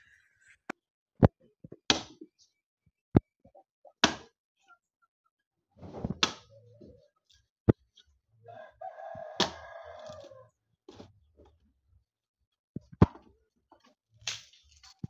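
Axe chopping into a log of firewood: single sharp chops at uneven intervals. A rooster crows once about halfway through.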